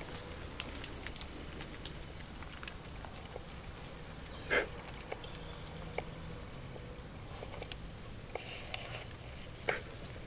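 Young wild boars foraging in leaf litter: faint scattered rustles and crackles, with two louder crunches, one about four and a half seconds in and one near the end.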